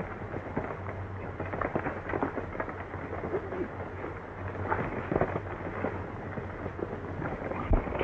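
Fistfight on an old film soundtrack: irregular punches, thuds and scuffling, with a sharp thump near the end, over the steady low hum and crackle of the worn soundtrack.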